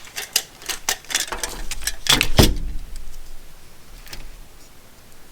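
Handling noise from a small push-button switch and its wire harness: a run of light clicks and rattles, loudest about two seconds in.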